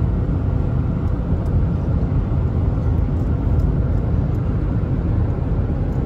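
Steady low rumble of road and engine noise heard inside the cab of a 2020 Toyota Tacoma 4x4 cruising at highway speed.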